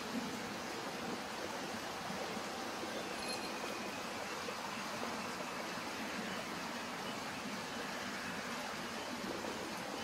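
Steady outdoor background hiss with no clear pitch or rhythm. About three seconds in there is a faint, brief high chirp.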